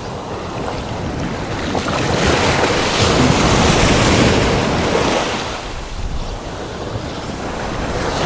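Ocean surf breaking and washing along the beach, with wind buffeting the microphone. The wash swells to its loudest about three to four seconds in, eases off, and builds again near the end.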